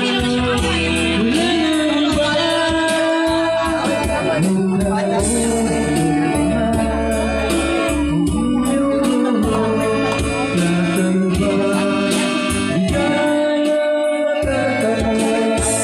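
Karaoke singing: a voice singing held, wavering notes into a microphone over a backing track with a steady beat, played loud through a speaker.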